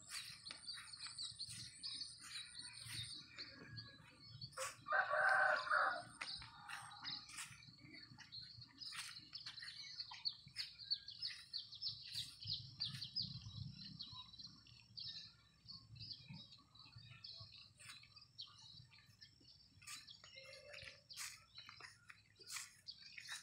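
A rooster crows once, about five seconds in, a single call of just over a second and the loudest sound here, over steady high-pitched chirping and scattered light clicks.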